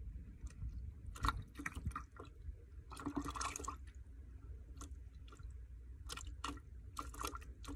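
Low rumble of wind on the microphone, with scattered short clicks and a longer rustle about three seconds in, from hands working bait and fishing line.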